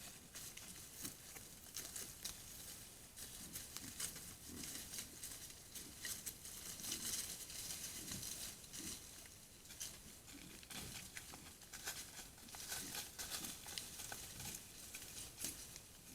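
An animal moving about and rummaging in dry leaf litter: continuous irregular rustling and crackling, with short soft low sounds every second or so.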